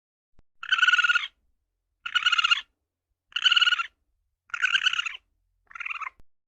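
An animal calling five times, about one and a quarter seconds apart. Each call is a short, rapidly pulsed, rattling call about half a second long, and the last is shorter and quieter.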